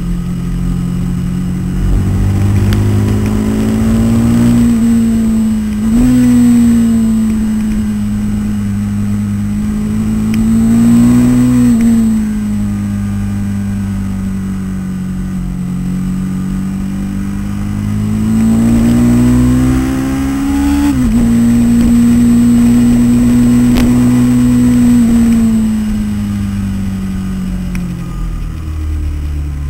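Aprilia RSV-R's 60-degree V-twin at race pace, heard through a helmet camera. Its pitch climbs under throttle and drops sharply at upshifts about six, twelve and twenty-one seconds in, and twice falls more slowly as the throttle is closed.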